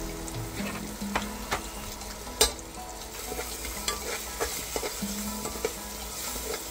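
Flat metal utensil stirring and scraping spiced onion-tomato masala in an aluminium pressure cooker, with a steady sizzle of frying and scattered metal-on-metal clinks against the pan; the sharpest clink comes about two and a half seconds in.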